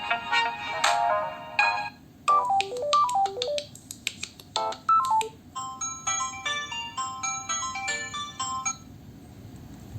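Samsung Galaxy A03s ringtones, several different ones played back to back in short snatches: first a chiming chord pattern, then a run of notes stepping down in pitch, then a bright, high plinking melody. The tones stop about a second before the end.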